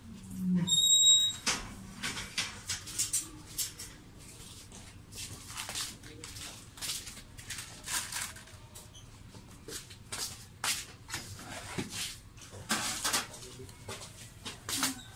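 Small clicks and scratches of fingers handling component leads on the circuit board of a car's RPM gauge, as a new capacitor is fitted to it. A short high squeak sounds about a second in.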